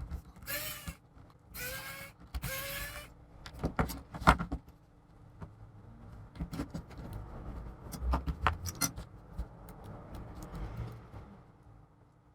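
Chromebook lid and hinge parts being handled and taken apart: three short scraping squeaks in the first three seconds, then scattered clicks, knocks and light rattling of small parts.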